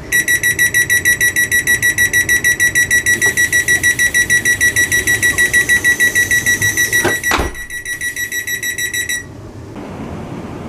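Class 350 Siemens Desiro's door-closing warning: a loud, high electronic beeping, about six beeps a second, while the sliding passenger doors close. The doors shut with two thuds about seven seconds in; the beeping goes on more quietly and stops about two seconds later.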